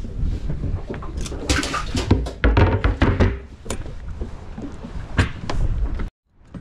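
A string of knocks and thumps on a small fishing boat over wind rumbling on the microphone, cutting off suddenly about six seconds in.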